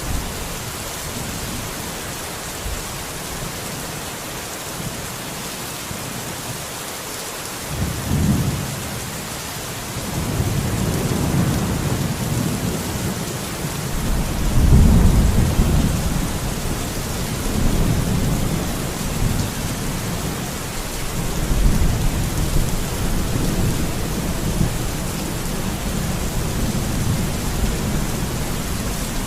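Steady heavy rain hissing, with thunder rumbling in about a quarter of the way through. It swells to its loudest near the middle, swells again a little later, and keeps on rolling.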